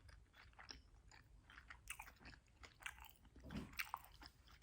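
Faint chewing and smacking of a homemade sushi roll, with many short, irregular mouth clicks.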